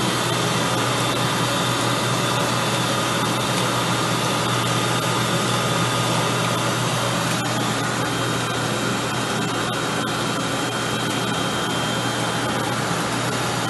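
Circular sock-knitting machine running as it knits a sock: a steady mechanical whir with thin high tones over it.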